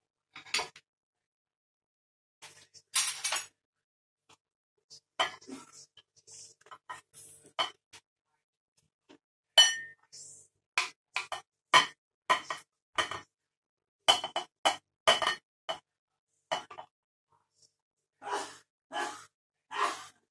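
A metal spoon clinking and scraping against a white-coated pan and a china bowl as curry is spooned out. It comes in short, irregular knocks with gaps between them, and a longer scrape about three seconds in.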